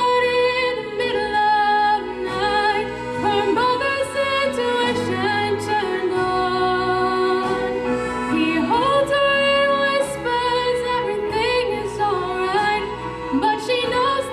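A song: a singer holding long, wavering notes and gliding between pitches over instrumental accompaniment.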